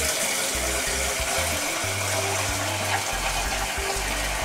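Tap water running steadily into a cooking pot, an even hiss.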